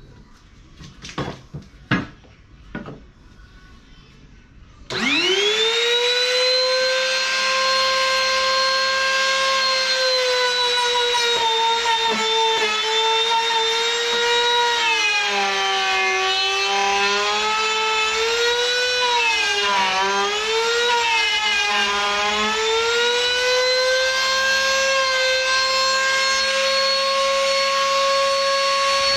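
A few knocks, then about five seconds in a wood router switches on and spins up to a steady high whine. In the middle its pitch sags and wavers several times as the bit cuts into the wood, then settles back up near the end.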